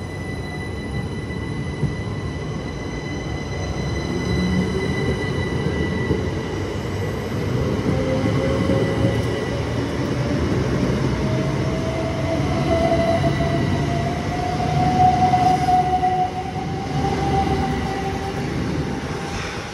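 Southeastern Electrostar electric train moving along the platform with a low rumble from its wheels. A steady high whine fades away while a second whine from the traction equipment climbs steadily in pitch as the train picks up speed, loudest near the end.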